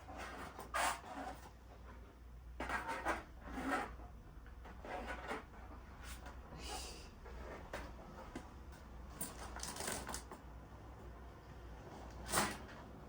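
Fire-pit parts being handled and fitted together: irregular scraping, rubbing and clattering, with the loudest scrape near the end.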